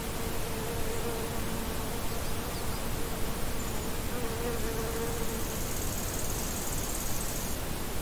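A flying insect buzzing close by, a steady hum that wavers slightly in pitch and fades away about five seconds in, over a constant outdoor hiss. A high, thin buzz starts about five and a half seconds in and stops shortly before the end.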